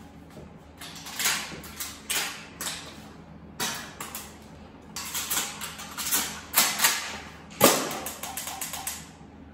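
Maruzen gas airsoft pump-action shotgun being worked by hand: a quick run of clicks and clacks as shells are thrust into the magazine and the pump is racked, with the sharpest, loudest clack about three quarters of the way through.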